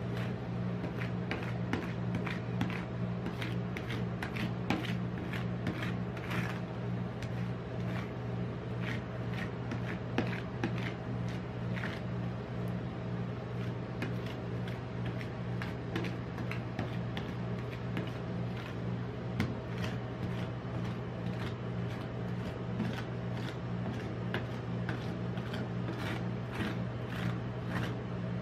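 Metal spatula scraping and tapping on a stainless-steel ice-cream cold plate, smoothing a frozen sheet of ice cream into a thin layer with quick, irregular strokes, over a steady low hum.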